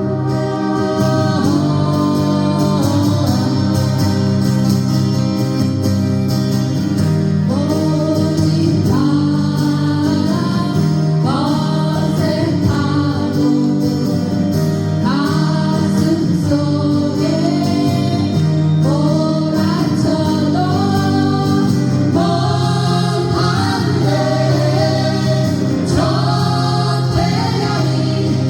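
A group of voices singing a Korean song together, with acoustic guitar accompaniment.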